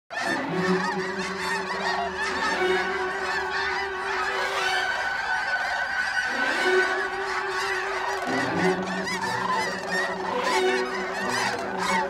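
A large flock of snow geese calling as it takes flight: a dense, continuous chorus of overlapping honks and yelps, with steady held tones underneath that change pitch twice.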